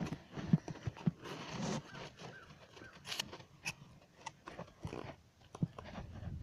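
Handling noise from a camera being picked up, carried and set down: irregular knocks, bumps and rustling against the microphone.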